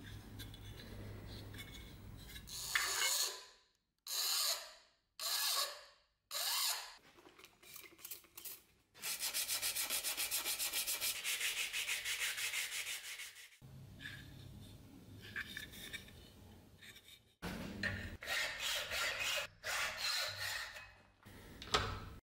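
Hand file rasping on a small metal part clamped in a bench vise. First come a few separate strokes, then a long run of fast, even strokes lasting several seconds, then another group of strokes near the end.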